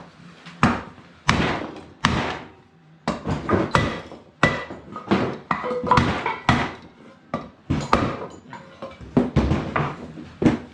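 Irregular hammer blows on a wooden block, about one to two a second, knocking the engine case halves together over the crankshaft main bearing; each blow rings briefly.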